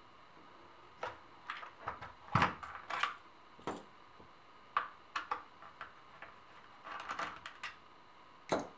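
Irregular clicks and knocks of an IWI Tavor bullpup rifle's polymer and metal parts being handled and turned over while its forearm is worked loose, with a heavier thump about two and a half seconds in.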